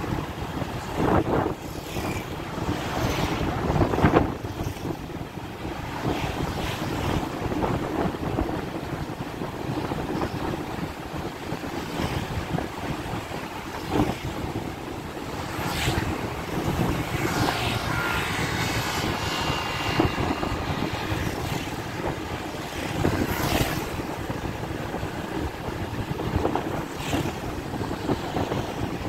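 Steady road and wind noise from a moving vehicle, with louder swells several times as motorcycles pass close by.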